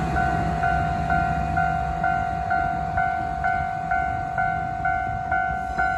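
Japanese railway level-crossing warning bell ringing in a steady repeating ding at about two strokes a second, as the Shiokaze sightseeing train's diesel locomotive passes with a low rumble that fades over the first couple of seconds.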